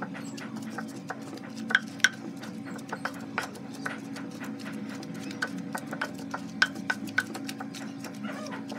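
Wooden pestle pounding and mashing thick, sticky black soap paste in a clay pot: a run of irregular soft knocks, with a few sharper ones, over a steady low hum.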